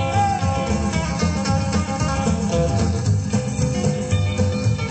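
Rockabilly band playing an instrumental passage led by guitar, with a steady beat.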